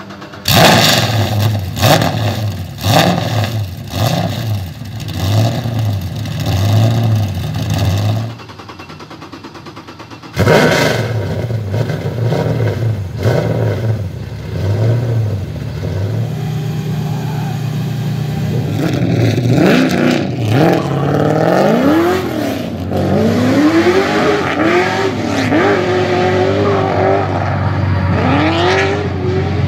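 A Nissan Silvia S14's swapped-in 6.2-litre LS3 V8 is blipped hard and repeatedly while standing still, each rev rising and dropping back. Later the engine runs on track, its pitch rising and falling over and over as the throttle is worked through a drift.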